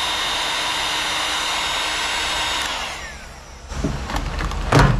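Electric heat gun blowing steadily while shrinking heat-shrink tubing over a wire end, then switched off under three seconds in, its fan whine falling away. A few handling clicks and a knock near the end.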